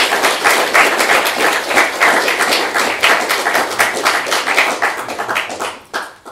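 Audience applauding: dense clapping that thins to a few last claps and stops about six seconds in.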